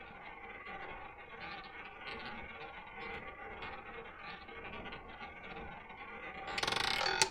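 Roulette ball rolling around the track of a double-zero roulette wheel, a steady whirring. Near the end it drops off the track and starts clattering loudly across the deflectors and pocket frets.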